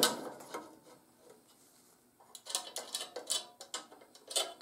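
Small scrapes and clinks of steel flat bar and a try square being handled on a steel welding table as a line is marked across the bar. Nearly quiet at first, then a quick run of short scrapes and taps in the second half.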